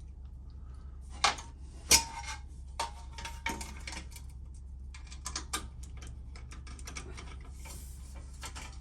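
Metal hand tools and fasteners clicking and clinking at irregular intervals as bolts and washers are fitted on a motorcycle, the sharpest knock about two seconds in, over a steady low hum.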